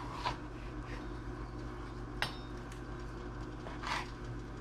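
A kitchen knife cutting fish on a cutting board: a few light knocks and scrapes as mahi-mahi is trimmed of its bloodline and bones, over a steady low hum.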